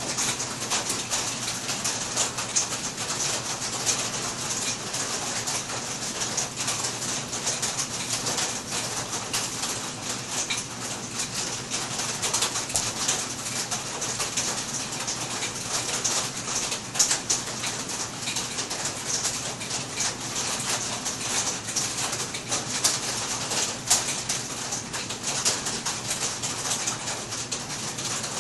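Two cheetahs purring steadily as they groom each other, over a dense patter of heavy rain on the roof.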